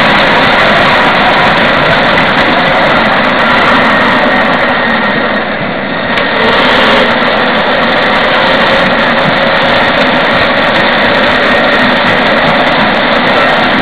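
Battery-electric 7¼-inch gauge miniature locomotive running along the track: a loud, steady rumble of wheels on rail with a faint motor whine. It dips briefly about halfway, then the whine rises slightly in pitch.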